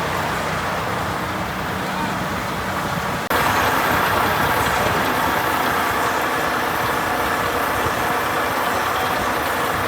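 Case IH 9250 combine's diesel engine running steadily. About three seconds in, the sound cuts abruptly to a louder, hissier run of heavy farm machinery.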